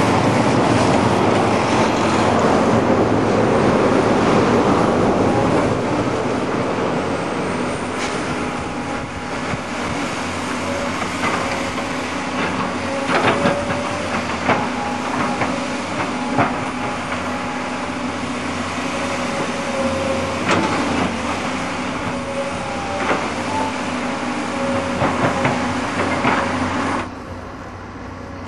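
Tracked hydraulic excavators' diesel engines running steadily, with irregular metallic clanks and knocks from the buckets and tracks as they dig clay. The sound drops away suddenly near the end.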